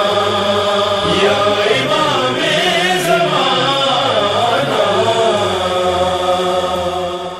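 Closing of a manqabat, an Urdu devotional song: a chorus of voices chanting in long, sustained lines without clear words, starting to fade out near the end as the recording closes.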